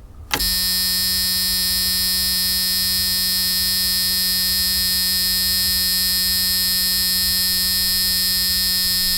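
A car's electric warning buzzer sounding one long, steady, unbroken buzz, starting abruptly about half a second in, over a low rumble from the car.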